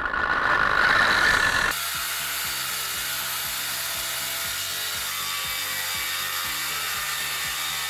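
Electric angle grinder running with no load. Background music plays along with it, and the sound changes abruptly about two seconds in.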